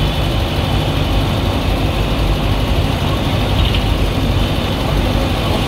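Steady engine rumble and road noise heard from inside a vehicle.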